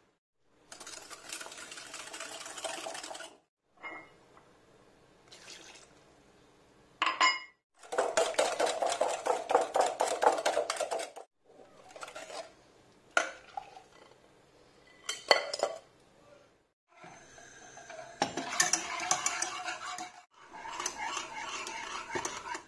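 Wire whisk rapidly beating egg yolks and sugar in a glass bowl, fast even clinking strokes in several separate bursts, with a few single clinks in between. Near the end the whisk works the mixture in a saucepan.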